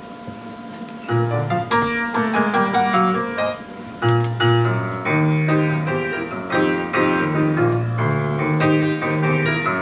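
Piano playing the introduction to a song: chords over a bass line, starting about a second in after a moment of quiet.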